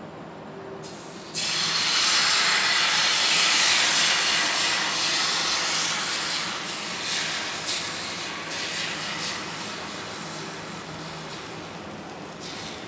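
Thin rice-and-coconut neer dosa batter sizzling as it is poured onto a hot tawa. The hiss starts suddenly about a second in, is loudest over the next few seconds, then slowly dies down as the batter sets into a lacy, bubbly layer.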